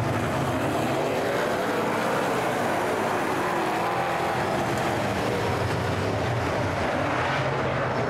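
A pack of super saloon race cars racing on a dirt speedway oval, several engines rising and falling in pitch as they rev through the corners and pass by.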